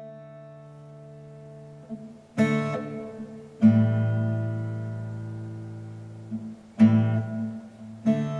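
Acoustic guitar music: ringing chords, freshly strummed about two and a half, three and a half, seven and eight seconds in, each one fading slowly.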